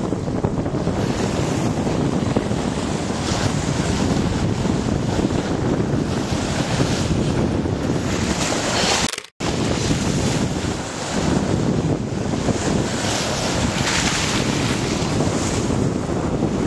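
Wind buffeting the microphone over the rush of sea water along a sailboat's hull, steady and loud. A brief dropout to silence about nine seconds in.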